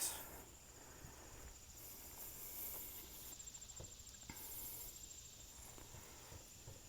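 Faint insects trilling, a steady high-pitched pulsing chirr, with a few soft footsteps.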